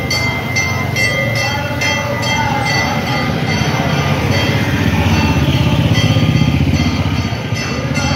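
Brass temple bells rung over and over, about two to three strikes a second, each strike ringing on into the next, over a continuous low din.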